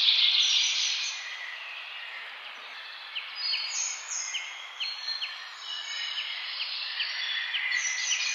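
Rice frying and sizzling in a hot pan as it is stirred and tossed with a wooden spoon, the hiss loudest in the first second. From about three seconds in, short chirps repeat about twice a second over the sizzle.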